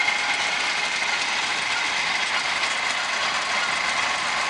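Combine harvester running steadily at low throttle, a constant engine and machinery sound with a steady high whine over it.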